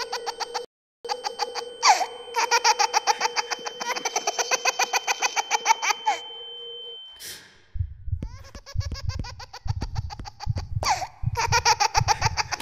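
High-pitched laughter in rapid, repeated ha-ha pulses over a steady electronic tone. About 8 seconds in, a low pulsing beat comes in at about two a second.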